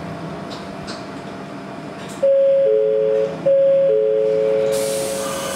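Train interior running noise, then the on-board announcement chime: a two-note descending ding-dong played twice, each note ringing on, signalling that a passenger announcement is about to start.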